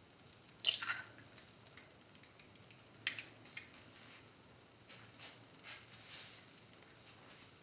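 Egg frying in a little oil in a pan of lentil mixture, giving faint, scattered crackles and pops. A sharper crackle comes just under a second in as the egg lands in the pan.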